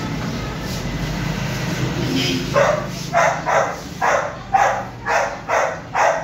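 Dog barking in a quick run of about eight short barks, roughly two a second, starting a little over two seconds in.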